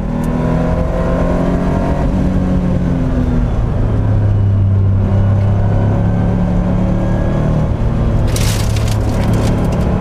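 Porsche 911 SC race car's air-cooled flat-six engine running under load, heard from inside the cabin. Its pitch eases a little in the first few seconds, then holds steady. A short burst of sharp crackling comes near the end.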